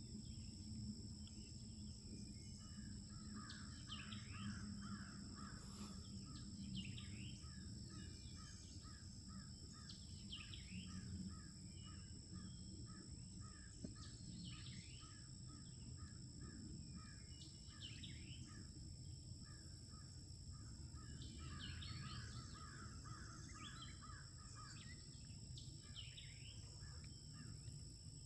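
A distant pack of beagles in full cry on a rabbit: a faint, steady run of rapid overlapping barks and bays, with scattered bird chirps over it.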